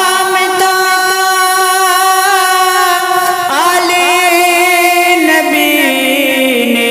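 A singer performing an Urdu devotional manqabat, holding a long steady note for about three seconds, then a second long note with small ornaments that steps down in pitch toward the end.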